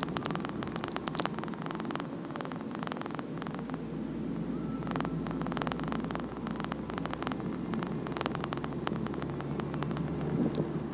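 Road and wind noise of an open-top car driving with its roof down: a steady low rumble with frequent crackling clicks.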